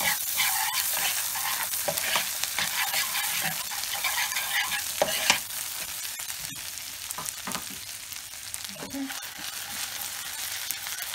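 Foaming nut-brown butter sizzling in a frying pan with hazelnuts and fennel jam, while a metal spoon stirs and scrapes through it. The sizzle is louder in the first half and settles a little after about five seconds.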